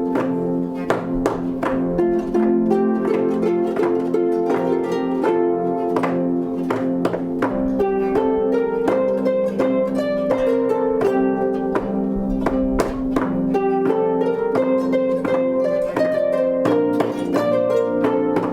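Instrumental music on plucked strings: a steady run of quick, sharply struck notes over ringing lower notes.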